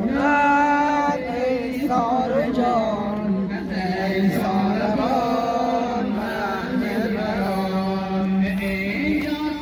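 A single voice chanting an Ashura mourning lament in long, wavering held notes. The pitch steps up at the start, sinks back midway and climbs again near the end.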